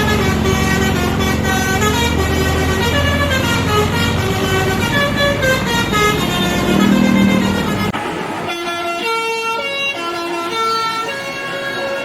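Basuri 'telolet' musical bus horn playing a melody of stepping horn notes over the low rumble of a bus engine. About eight seconds in, the sound cuts abruptly to another horn tune with little engine noise under it.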